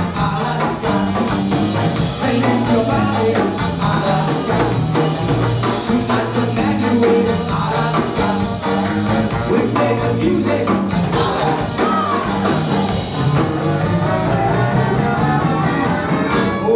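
Live rock band playing with electric guitars, bass, accordion, saxophone and drum kit, with a steady drum beat and singing over it; the song closes on a loud final hit at the very end.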